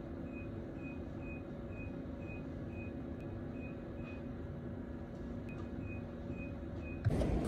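Quiet room tone: a low steady hum with a faint, short, high-pitched beep repeating about twice a second. The beeps stop for about a second midway, then start again.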